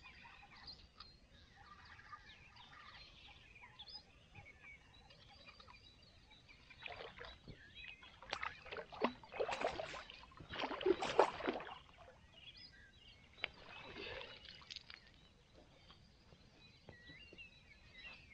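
A hooked burbot thrashing and splashing at the water's surface as it is reeled in to shore, in several loud bursts about halfway through and a fainter splash a couple of seconds later. Birds sing faintly.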